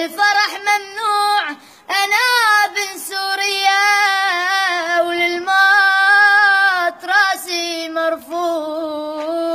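A boy singing a slow Arabic song alone, with no accompaniment, in a high voice, drawing out long ornamented notes that waver in pitch, with a short breath between phrases.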